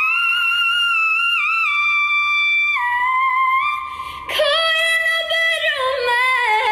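Very high-pitched sung melody with long held notes that step up and down. About four seconds in it turns into a lower, wavering line that slides downward.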